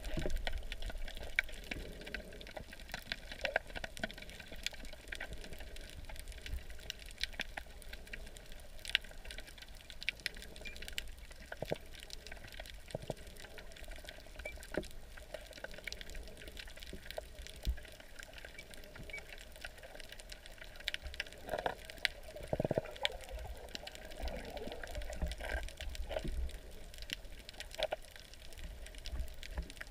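Muffled underwater sound over a coral reef: swishing, gurgling water with scattered crackling clicks throughout, and a louder gurgle a little past two-thirds of the way through.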